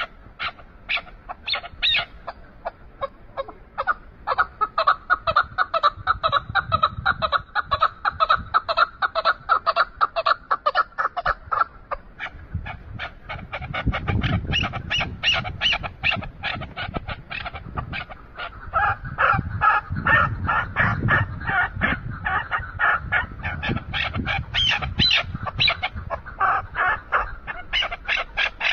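Chukar partridge calling: a long, unbroken series of rapid, repeated chuk notes, several a second.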